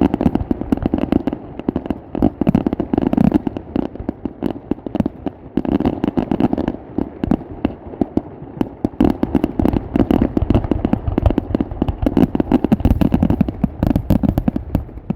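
Fireworks grand finale: a dense, continuous barrage of rapid bangs and crackling, many shells going off at once, easing off only at the very end.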